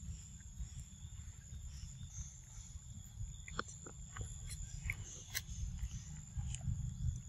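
Macaques eating mango, a baby biting and sucking at a piece: scattered short wet smacking clicks over a steady low rumble and a constant high-pitched whine.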